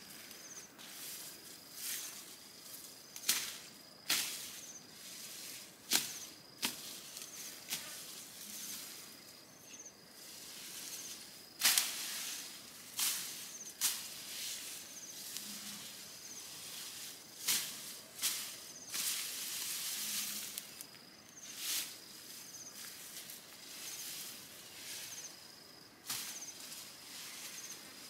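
Footsteps crunching and swishing through tall dry grass and brush, irregular strokes every second or so, a few louder and longer where stems brush past. A faint high chirp repeats steadily underneath.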